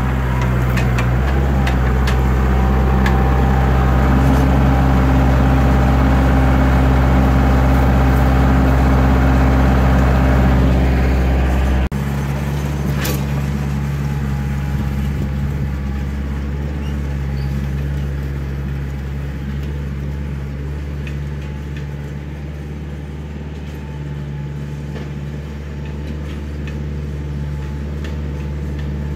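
Backhoe diesel engine running steadily under work, with a clicking or clattering now and then. About twelve seconds in the sound changes suddenly to a lower, quieter engine note.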